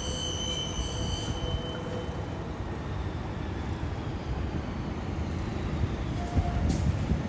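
Wind rumbling on the microphone, with a steady high-pitched whine at the start that fades out within about two seconds.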